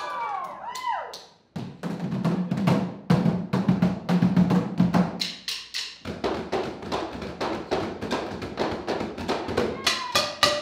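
Percussion ensemble drumming with sticks on barrels, a fast dense pattern of strokes that starts after a brief gap about a second and a half in, heavy and low for the first few seconds, then lighter and brighter. A gliding ringing tone sounds before the gap, and a ringing metallic stroke comes near the end.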